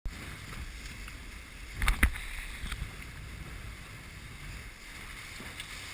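Water rushing and splashing along the hull of a Tempo Scow sailboat moving fast under sail, with wind rumbling on the microphone. Two loud sharp knocks about two seconds in.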